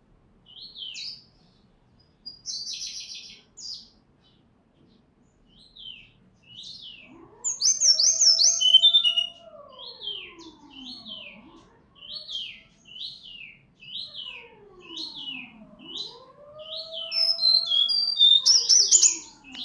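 Brown-chested jungle flycatcher singing: short, sharp whistled notes, scattered at first, then repeated in a steady run about once or twice a second, with busier bursts of song twice. A lower gliding tone rises and falls twice underneath.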